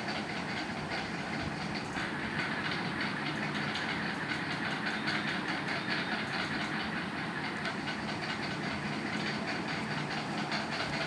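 Steady background noise, a rumble and hiss with a fast, fine clatter running through it, even in level throughout.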